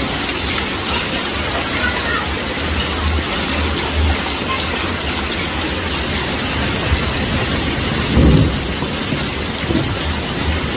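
Heavy rain pouring down and splashing on a flooded street, a steady hiss, with one brief low thump about eight seconds in.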